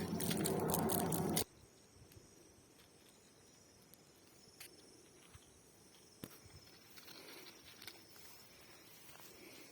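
A loud noise cuts off abruptly about a second and a half in, leaving faint outdoor ambience: a steady high-pitched insect drone with a few faint ticks.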